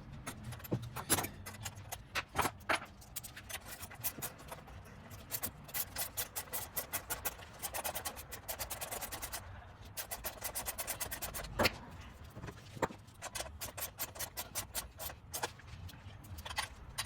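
Ratchet wrench clicking in quick even runs while turning the minibike's rear-wheel chain adjuster bolts to pull the wheel back and tension the chain, with a few louder metal knocks from the tools.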